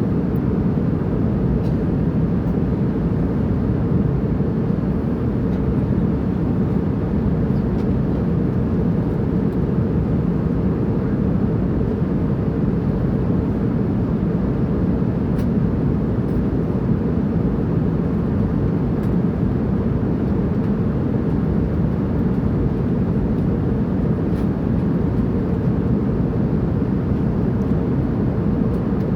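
Airplane in flight: a steady, unchanging low drone of engine and air noise, with most of its weight in the low range.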